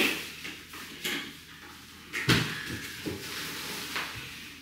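Plastic packaging bag rustling as it is pulled off and handled, with a dull thump about two seconds in as the tower fan body is handled.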